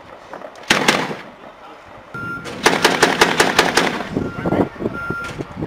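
MK-19 40 mm automatic grenade launcher firing: a single report less than a second in, then a burst of about eight rounds at roughly six a second near the middle.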